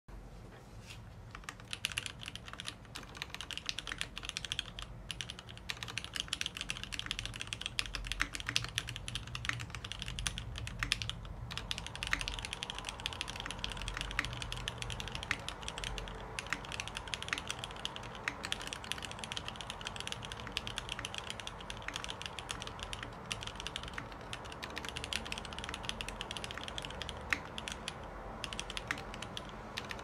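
Continuous typing on a Montage prototype tenkeyless mechanical keyboard with lubed Gateron Tealios linear switches in Cherry top housings, 60 g springs, on a 1.5 mm aluminium top-mount plate: a dense stream of keystroke clacks, starting about a second in, with a few short pauses.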